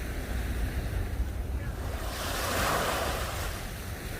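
Wind buffeting the microphone over the wash of surf, with a wave swelling and hissing about two seconds in.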